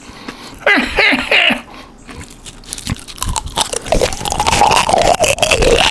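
Close-up crunching of crispy pork rinds (chicharrones), a dense run of sharp crackles that grows louder in the second half.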